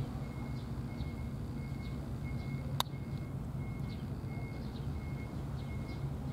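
Outdoor ambience: a steady low rumble, with a faint high note repeating about every two-thirds of a second and faint scattered bird chirps. One sharp click about three seconds in.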